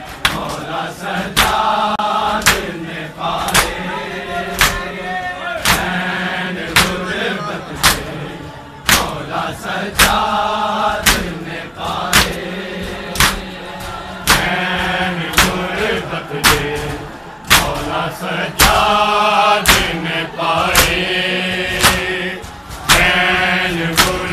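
A crowd of men chanting a Muharram lament (nauha) together, with sharp chest-beating slaps (matam) landing in a steady beat about once a second.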